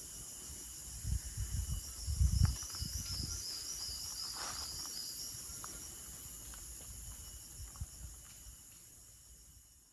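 Night insect chorus of crickets, a steady high-pitched chirring in several layers, with a brief warbling trill a few seconds in. Low rumbling thumps on the microphone come between about one and three seconds in, and the sound fades out at the end.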